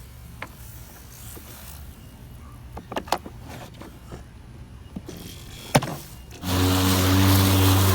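Several clicks and knocks, then, about six and a half seconds in, a battery-powered lawn mower's brushless motor and blade start up suddenly and run with a loud steady hum and rush of air.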